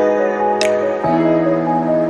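Background music: soft, gentle instrumental with sustained chords that change about once a second and light tinkling accents.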